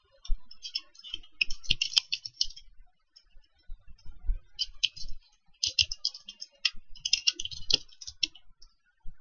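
Typing on a computer keyboard: runs of rapid keystrokes with short pauses between them.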